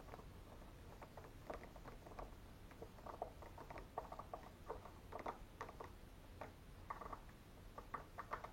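Faint, irregular small clicks and taps of deadbolt lock hardware being handled and fitted into a door.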